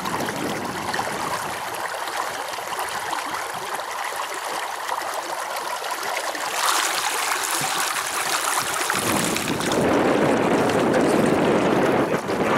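Water rushing and splashing against an inflatable pontoon under way on choppy water, growing louder and fuller about nine seconds in.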